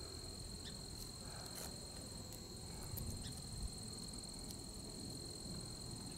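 A steady high-pitched insect trill, with a second, higher trill above it, over a faint low rumble, with a few faint clicks.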